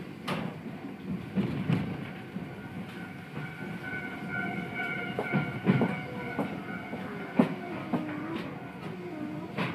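Iyotetsu streetcar running on street track, heard from inside the cab: steady running noise with irregular wheel knocks over rail joints. A high steady squeal of the wheels on the rail comes in the middle, and a motor whine falls in pitch in the second half.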